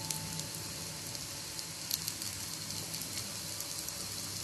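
Adai batter frying in oil on a hot dosa griddle: a steady sizzle with scattered small crackling pops.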